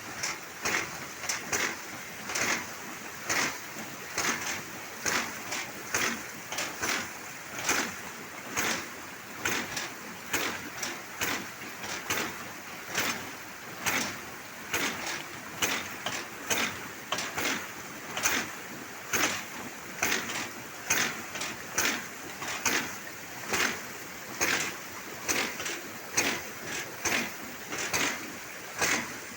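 Hydraulic ram pump working: its valve knocks shut in a steady rhythm, a little more than once a second, as the pump lifts water uphill without electricity.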